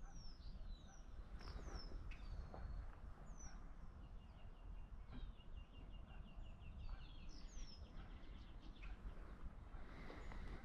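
Faint birdsong: several short, high, down-slurred chirps and a fast trill of repeated notes in the middle, over a steady low rumble of wind or water.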